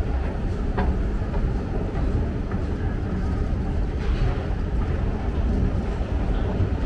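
Steady low rumble of city ambience, with faint voices about four seconds in.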